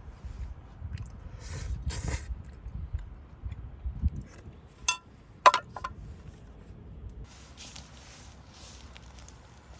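Handling noises: rustling, then two sharp clinks with a short ring about half a second apart, then more rustling.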